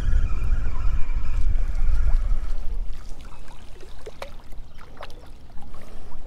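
Wind rumbling on the microphone over water lapping against a boat hull. A high whine slides down in pitch and fades out after about two and a half seconds, and a few light clicks follow in the quieter second half.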